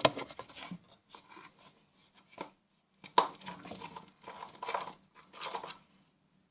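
A utensil stirring and scraping a thickening glue-based slime mixture against its container, in irregular bursts that stop about six seconds in.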